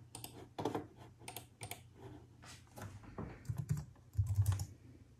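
Typing on a computer keyboard: irregular key clicks, with a quicker, heavier run of keystrokes about three and a half to four and a half seconds in, as a password is entered.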